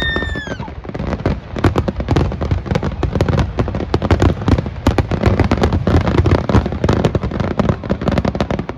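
Fireworks barrage: a dense, rapid run of booming bursts and sharp crackles with no let-up. There is a brief whistle right at the start.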